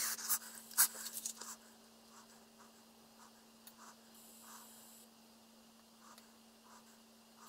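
Faint crackling of vegetable oil baking onto a hot cast-iron roaster while it is being seasoned, with a few sharp ticks in the first second and a half and soft scattered pops after, over a steady low hum.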